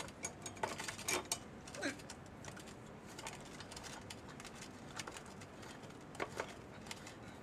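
Winged corkscrew being twisted into a wine bottle's cork: light metallic clicks and scrapes, several in the first two seconds and a couple more about six seconds in.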